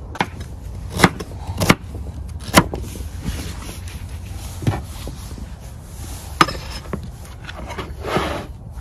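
Chef's knife chopping celeriac on a wooden cutting board, the blade knocking down onto the board in irregular sharp strokes, about one a second.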